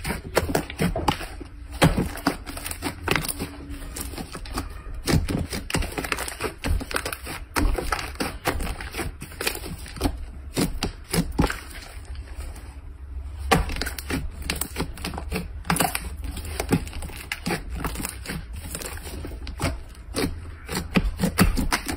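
Slime being squeezed and pressed by hand, giving a dense, irregular run of crackles, clicks and pops.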